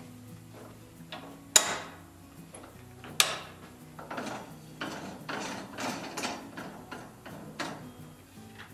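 A hand-lever rubber-tire machine being worked on a buggy wheel: two sharp metal clanks about a second and a half apart, then a run of lighter clunks and ratchet clicks.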